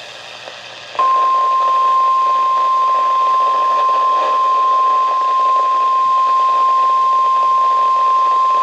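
NOAA Weather Radio's 1050 Hz warning alarm tone: one steady, loud, high tone that starts about a second in over radio hiss. It signals that a warning is about to be read, here a tornado warning.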